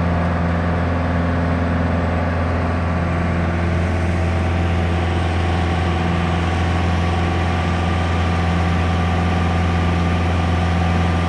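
Light touring aircraft's engine and propeller droning steadily in flight, heard from inside the cabin, with a deep, even hum.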